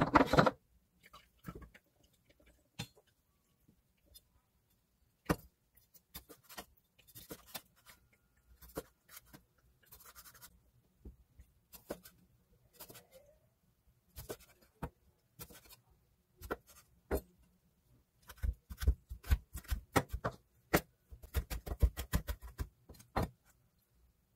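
Santoku knife cutting cherry tomatoes on a wooden cutting board: scattered single taps of the blade on the board as each tomato is sliced, then a quick run of chopping strokes, about five a second, in the last few seconds as the tomatoes are chopped fine.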